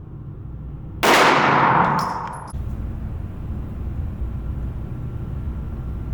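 A single 1911 pistol shot about a second in, its report ringing on for about a second and a half before cutting off abruptly, followed by a steady low rumble.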